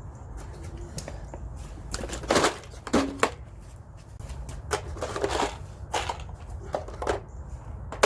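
Irregular rustling, crackling and clicking of cables and hand tools being handled during electrical connection work, about a dozen short noises spread through, the loudest a few seconds in.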